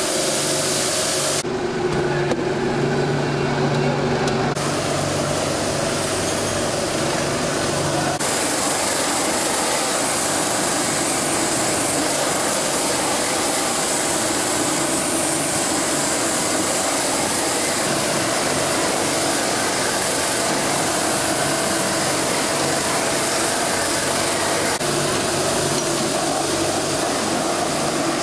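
Gas blowtorch burning with a steady rushing hiss against the rind of a cheese wheel as it spins on a motorised turning machine, with the machine's motor humming underneath.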